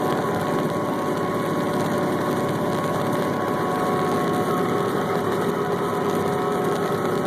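Sugar beet harvesting machinery running steadily, an engine hum with steady whining tones from the drive; a higher whine joins about four and a half seconds in.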